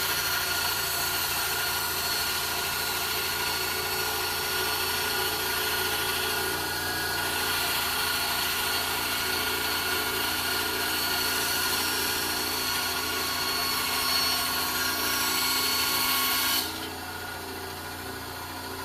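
Power saw running steadily while cutting through a glued-up wooden block. About three-quarters of the way through, the cutting noise stops abruptly and the motor hums on.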